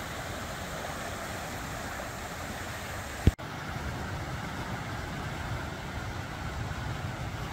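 Steady rushing of a flood-swollen river, an even noisy wash. A short thump and a momentary break about three seconds in mark a cut in the recording, after which the rush has a little more low rumble.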